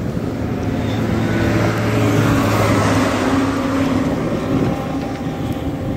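A motor vehicle going past: a steady engine hum under tyre and road noise that swells to a peak about two to three seconds in, then fades.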